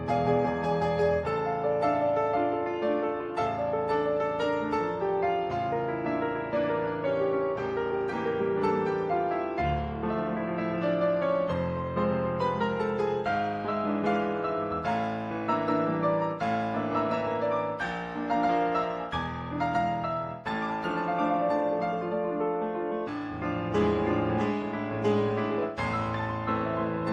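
Background piano music, a steady flow of notes with a classical, old-time feel.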